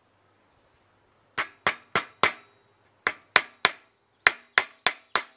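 Small hammer tapping a panel pin through a beehive frame's end bar into the wooden top bar. The taps start about a second and a half in and come in three quick runs, about a dozen sharp taps in all.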